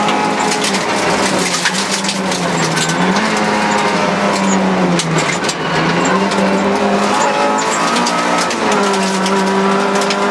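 Rally car engine running hard at high revs, heard from inside the cabin, its note dipping and climbing again a few times through the stretch. Gravel clatters and pings against the car's underside throughout.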